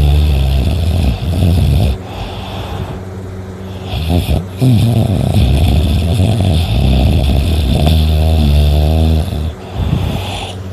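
A person snoring: a rough, rumbling snore in the first two seconds, then a long one of about five seconds from the middle on, with quieter breathing between. A steady high hiss runs underneath.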